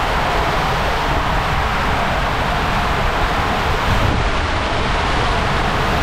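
Rushing water and a rider's tube sliding down an enclosed waterslide tube, a steady loud rumble with no let-up.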